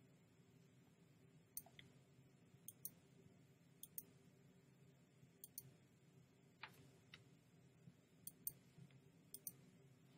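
Computer mouse clicking: short sharp clicks, mostly in quick pairs of press and release, about six times, over a faint low hum.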